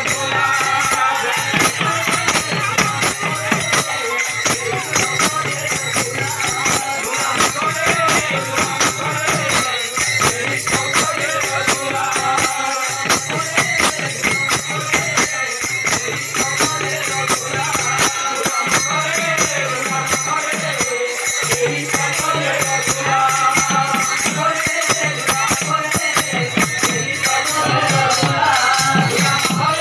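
Odia devotional kirtan: a group singing to a busy steady rhythm of hand-played barrel drums and clashing brass hand cymbals.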